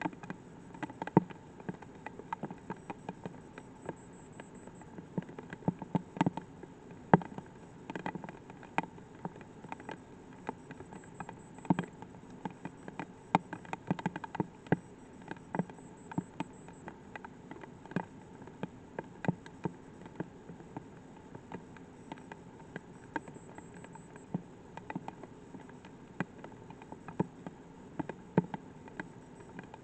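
Light rain: single raindrops ticking irregularly close to the microphone, a few a second and some louder than others, over a faint steady hiss.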